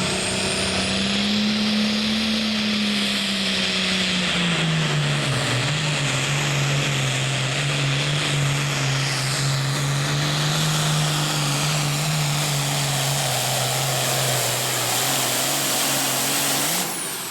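Super Farm class pulling tractor's diesel engine running hard under a constant loud roar, with a thin high whine climbing over the first second or so. Its pitch eases down a few seconds in and then holds steady until it cuts off abruptly near the end.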